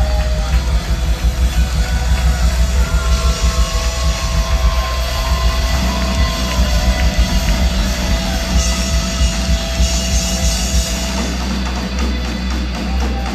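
A rock band playing live through a club PA, heard loud from among the audience: drum kit and bass with guitar on top. The low end grows heavier about halfway through.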